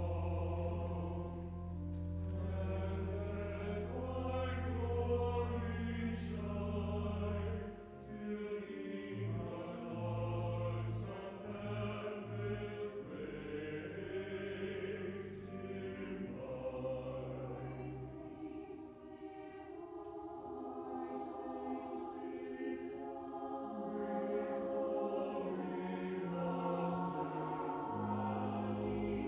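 Church choir singing in parts with pipe organ accompaniment. The organ's low notes are held steady at first, then move in shorter notes from about eight seconds in.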